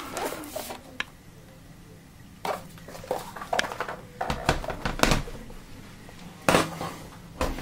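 Aluminium MacBook Pro laptops handled, knocking against each other and set down on a wooden floor: a scattered series of light knocks and clinks.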